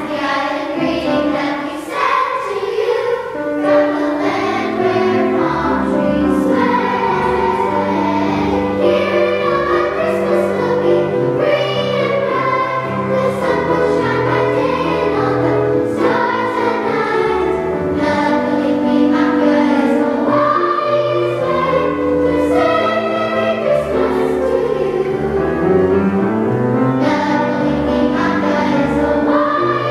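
Girls' choir singing, with sustained notes over low accompanying bass notes.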